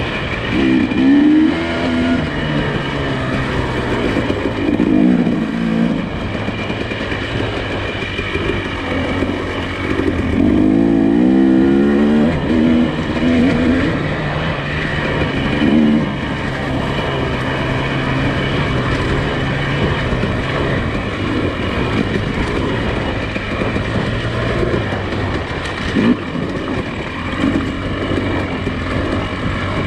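Nissan Pathfinder SUV engine running while driving, the engine note rising and falling a few times.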